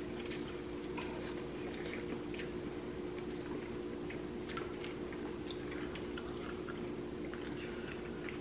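People eating noodle soup: soft chewing and slurping, with scattered light clicks of chopsticks and spoons against ceramic bowls, over a steady low hum in the room.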